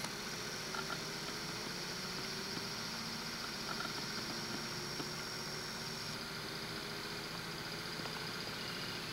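Steady distant engine rumble from vehicles, with a faint steady high whine that stops about six seconds in.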